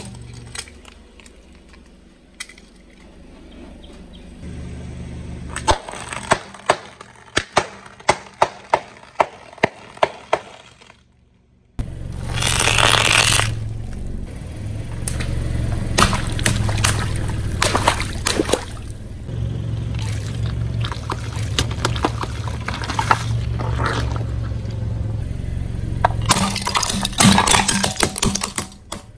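Car tyre slowly rolling over objects on concrete and crushing them: a run of sharp clicks and crackles, then a longer crunching, crackling crush over a steady low engine hum. It ends in a burst of sharp cracks as hard plastic pieces break under the tyre.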